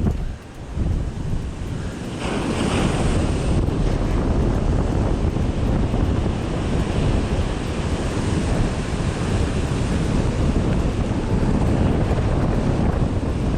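Wind buffeting the microphone over ocean surf breaking on a beach, a dense steady rush with a brief brighter hiss about two seconds in.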